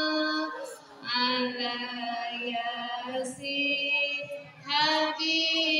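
Children and women singing a chant-like melody together, in long held notes with short breaks for breath between phrases.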